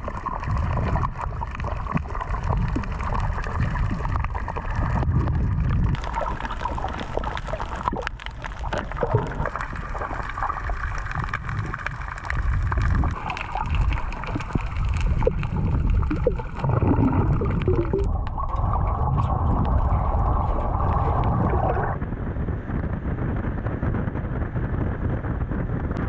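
Water gurgling and sloshing over a steady low rumble, the sound shifting about 18 seconds in and again about 22 seconds in.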